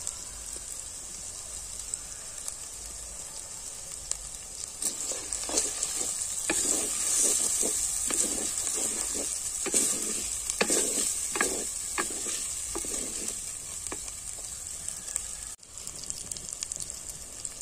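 Onion-tomato masala sizzling in oil in an earthenware clay pot, fried down with turmeric and chili powder until the oil separates. A spatula scrapes and stirs it in repeated strokes, about two a second, from about five seconds in until about thirteen seconds, and the sound briefly drops out near the end.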